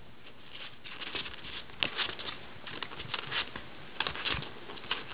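A Chihuahua puppy's claws scratching and tapping at the side of a padded ottoman, in quick irregular scrapes and taps from about a second in.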